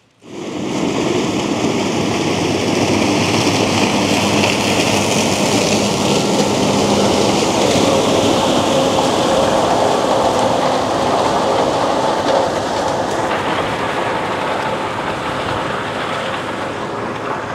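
Fendt Ideal combine harvesting corn with a 12-row Geringhoff chopping corn head: engine, threshing rotor and stalk-chopping header running together as a loud, steady mechanical rush. It eases a little near the end as the machine moves away.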